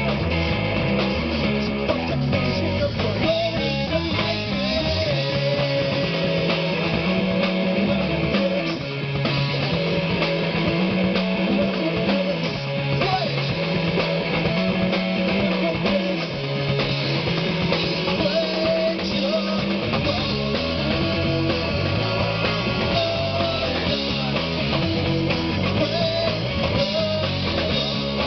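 A rock band playing: guitar over a drum kit, with a bass line moving beneath.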